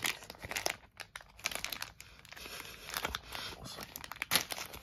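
Thin plastic wrapper being peeled and torn open by hand: an irregular run of crinkles and crackles, with one sharper crackle near the end.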